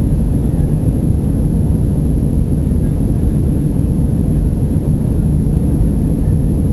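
Cabin noise of an Airbus A320 climbing after takeoff: the jet engines and rushing air heard through the fuselage as a steady, loud low rumble.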